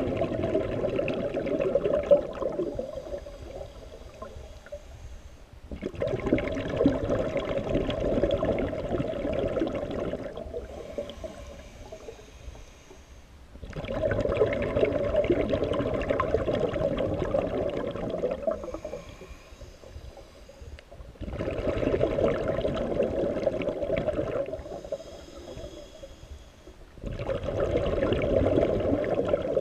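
A scuba diver breathing through a regulator, heard underwater. Every seven seconds or so comes a long burst of exhaled bubbles, five in all, and between them a quieter inhalation hiss with a thin high whistle.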